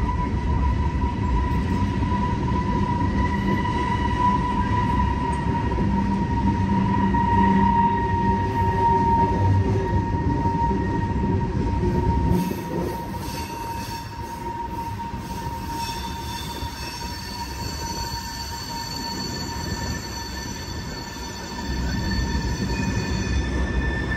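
Freight train of tank cars rolling past, its wheels squealing in a steady high tone over the low rumble of the cars. About twelve seconds in, the rumble drops and several higher-pitched squeals take over; the rumble comes back near the end.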